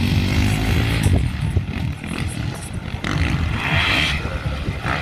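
Motocross dirt bike engines running and revving. A brief brighter, higher-pitched burst comes about three and a half seconds in.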